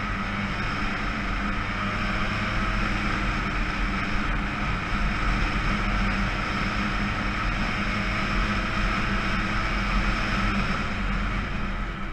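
Kawasaki KE100's two-stroke single-cylinder engine running steadily under way, its pitch drifting only slightly, over a constant rushing hiss of wind and road noise.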